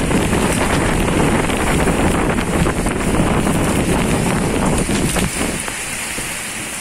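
Typhoon winds buffeting the microphone over heavy rain. The low rumble of the gusts eases about five seconds in, leaving mostly the hiss of the downpour.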